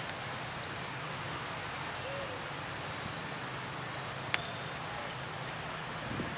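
Steady outdoor background noise, with a faint short call about two seconds in and a single sharp click a little past the middle.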